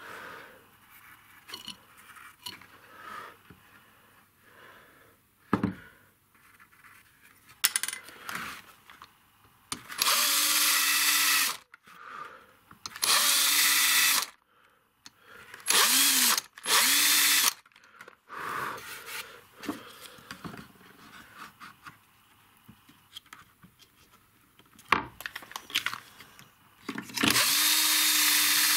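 Electric drill boring small holes into a wooden board in five short runs of one to two seconds each, the motor winding up at the start of each run, with quiet handling and tapping between runs.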